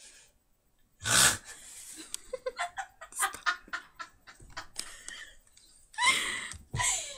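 A girl's stifled laughter: a sharp burst of breath about a second in, a run of quick breathy giggles, then two high squealing laughs near the end.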